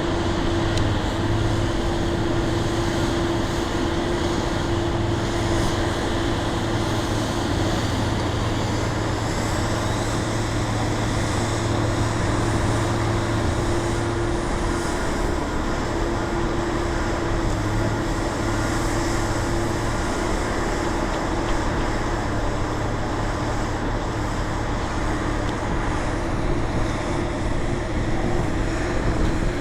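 Heavy drilling or concrete-pumping machinery running steadily: a constant engine drone with a steady hum that holds the same pitch and level throughout.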